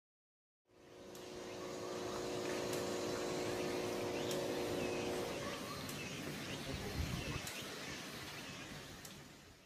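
Outdoor ambience fading in about a second in: a steady mechanical hum with several tones, which stops about five seconds in, under small bird chirps and faint distant voices.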